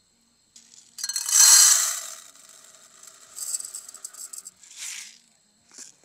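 Dry rice grains being poured and rattled in a pot for cooking. A dense pouring clatter about a second in is the loudest part, followed by a second, shorter spell of rattling and a brief swish near the end.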